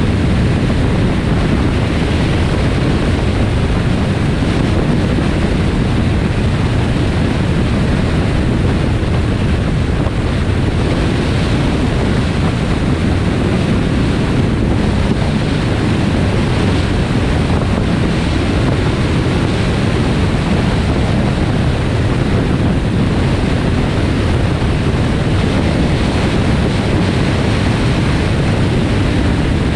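Steady rush of wind and road noise from a car driving at highway speed, with heavy wind noise on the microphone.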